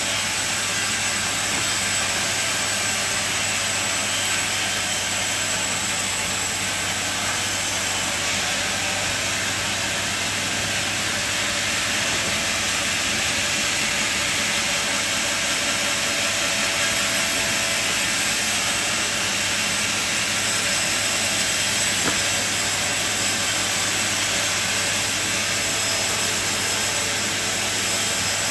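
Sawmill machine running steadily: a constant hiss with a low hum underneath.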